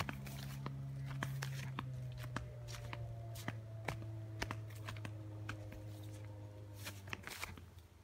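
Footsteps crunching and crackling through dry forest undergrowth and twigs, with brush rustling against clothing. Under them runs a steady low drone that slowly sinks in pitch and fades out about seven seconds in.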